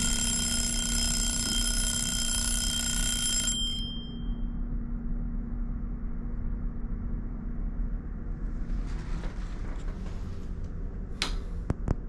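An alarm rings loudly for about four seconds as a steady, shrill, multi-toned ring, then stops suddenly, leaving a fading tone. Underneath runs the low, steady drone of a ferry's engines, and two sharp clicks come near the end.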